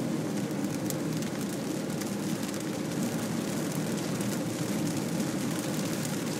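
Heavy rain hitting the car's windscreen and roof, heard from inside the cabin as many fine ticks over the steady road and tyre noise of the car driving on a wet road.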